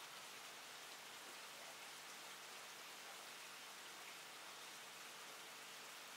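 Faint, steady hiss of aquarium aeration: air bubbles rising and breaking at the water surface in the tank.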